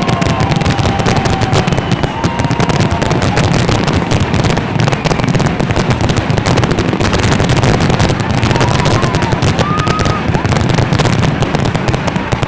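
Fireworks finale: a dense, continuous barrage of rapid crackling bangs and pops, many per second, with no let-up.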